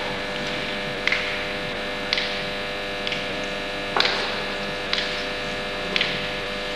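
Steady electrical mains hum on the recording, with six short sharp clicks about a second apart.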